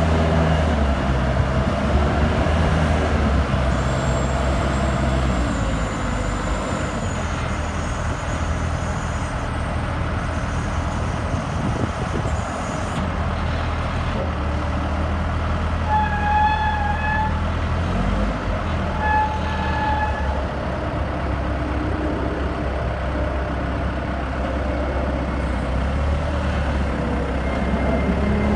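Lull 944E-42 telehandler's diesel engine running steadily as the machine drives and turns on gravel. Two short beeps sound a few seconds apart past the middle.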